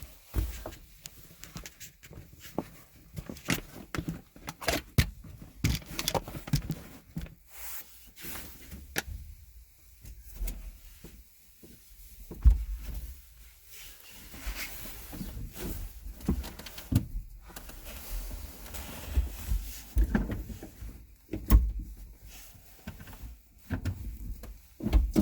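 Irregular knocks, clunks and rubbing of hands handling parts in and around a car's gearshift area, with two louder thumps, about twelve and twenty-one seconds in.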